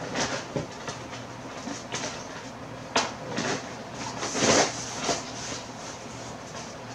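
Carded action figures in plastic blister packs rustling and knocking together as they are rummaged out of a storage box, with a sharp knock about three seconds in and the loudest rustle a second and a half later.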